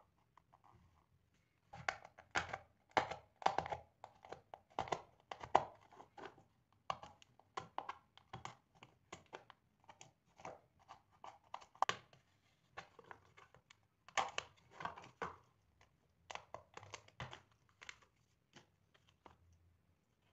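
A blade cutting out the wall of a small plastic box: a long run of sharp, irregular scraping and snapping strokes, in clusters, starting about two seconds in and stopping near the end.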